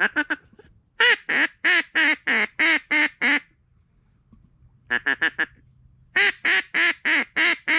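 Mallard-style quacking, loud and close: a run of about eight evenly spaced quacks, a quick string of short notes about five seconds in, then another run of evenly spaced quacks, as blown on a duck call to bring ducks in.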